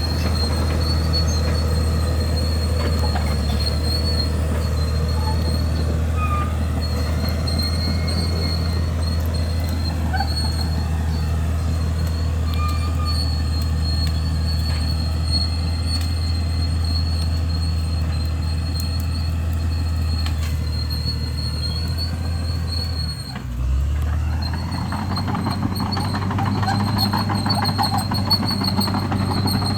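A crawler bulldozer's diesel engine runs steadily under load, with metallic track noise. About 23 seconds in, the engine note dips briefly and then picks up again.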